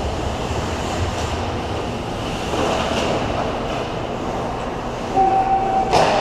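Ice hockey play: a steady wash of skates scraping and carving on the ice. About five seconds in there is a short steady whine, then a sharp crack near the end.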